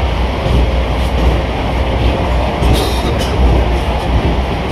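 Vande Bharat electric trainset running, heard from inside its driving cab: a steady low rumble of the train in motion with rail noise.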